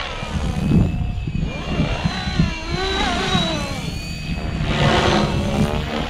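Fly Wing FW450 V2 electric RC helicopter flying on a 3S LiPo, its motor and rotor giving a whine that wavers up and down in pitch as it manoeuvres. Wind rumbles on the microphone throughout.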